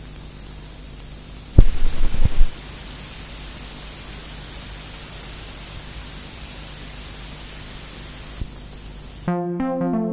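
Steady hiss and mains hum of an old analog video recording, broken about one and a half seconds in by a second of loud crackling pops. Near the end a Yamaha analog synthesizer starts playing a fast sequence of stepped notes.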